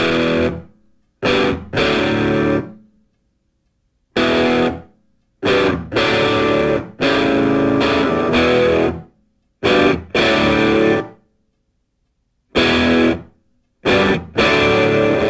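Music: distorted electric guitar playing heavy chords in stop-start stabs, each cut off into silence before the next.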